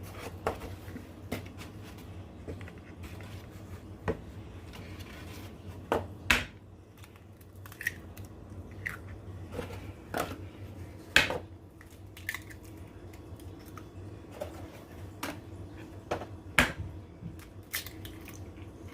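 Eggs being cracked one after another into a mixing bowl: scattered sharp taps and crunches of shell, a few of them much louder knocks.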